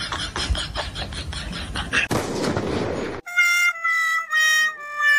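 A rhythmic pulsing sound, then about a second of noisy rush, cut off abruptly a little past halfway by an added comic sound effect: a few held horn-like notes stepping downward.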